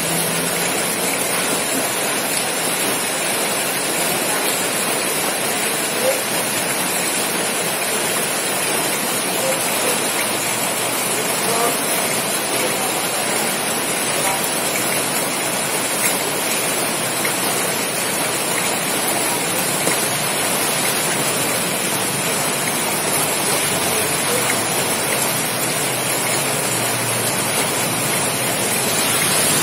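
Steady, even rushing noise like heavy rain or rushing water, with a constant high hiss over it.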